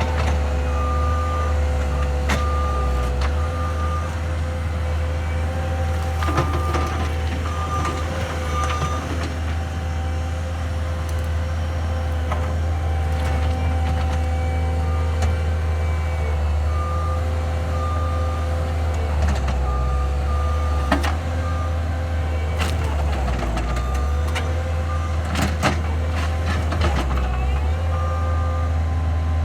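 Skid steer loader's diesel engine running steadily under load, with a steady whine over it, while its reverse alarm beeps in several spells as the machine backs up. Occasional sharp knocks and scrapes, typical of the stump bucket working.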